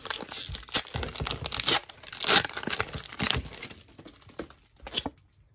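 Foil Pokémon TCG booster pack being torn open and its wrapper crinkled in quick, irregular rustles and tears. The rustling dies away about four seconds in.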